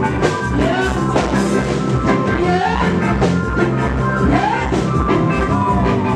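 Reggae band playing live: a drum kit keeps a steady beat under guitar, with a voice singing over the top.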